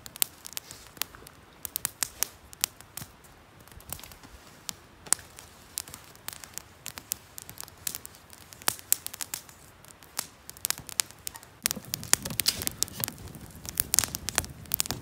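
Small twig campfire crackling and popping with many sharp snaps. In the last few seconds it gets louder, with a low rushing sound under the crackle.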